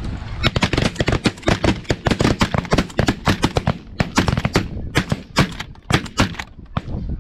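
Rapid volley of shotgun fire from several hunters: dozens of shots in quick, overlapping succession for about six seconds, thinning out and stopping near the end.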